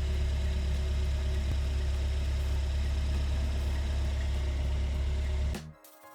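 2015 Subaru WRX running with a steady low drone, which cuts off abruptly near the end.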